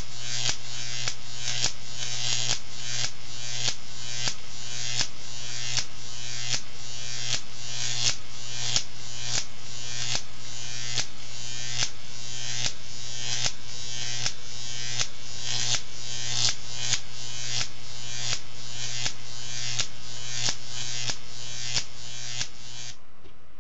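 Jacob's ladder traveling-arc display running: a loud electric buzz with a steady hum, the arc climbing the electrodes and snapping as it breaks up and re-strikes at the bottom about every half second. It cuts off near the end.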